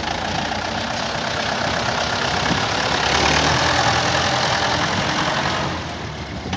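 Farm tractor's diesel engine running as it pulls a trailer loaded with soil, louder around the middle as it passes close by, then easing off near the end.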